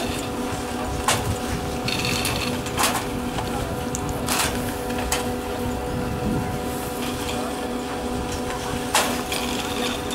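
1959 Doppelmayr short T-bar surface lift with Liftomat hangers running at its bottom station: a steady mechanical hum, with about five sharp clacks as the hangers come around the station and two brief higher whirring sounds.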